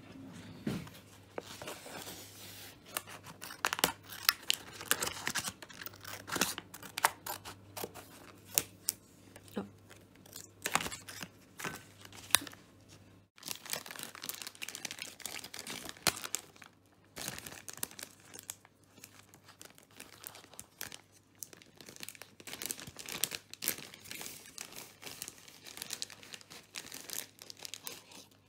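Plastic treat pouches crinkling and tearing as they are opened and handled, with sharp irregular crackles throughout and a brief gap about halfway.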